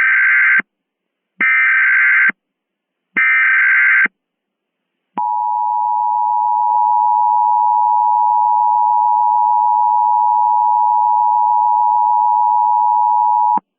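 Emergency Alert System tones: three short bursts of digital SAME header data, about a second each, followed by the EAS two-tone attention signal. The attention signal is a steady dual tone of 853 and 960 Hz, held for about eight seconds before it cuts off suddenly.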